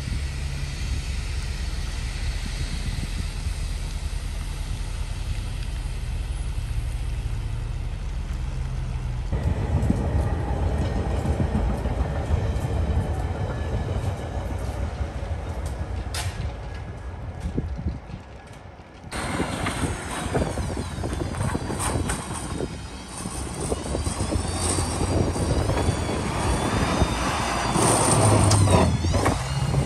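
A steady low rumble of wind, then from about nine seconds in a rapid-transit train running past. From about nineteen seconds a pickup snowplow truck runs, with squeals that slide up and down in pitch, loudest near the end.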